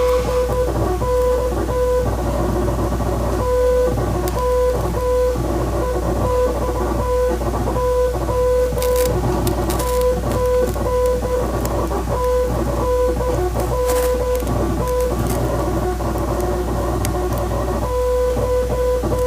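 Morse code beeps: one steady tone keyed on and off in short and long marks over a busy, noisy background with a low hum. The beeping pauses about two seconds in and again for a few seconds near the end.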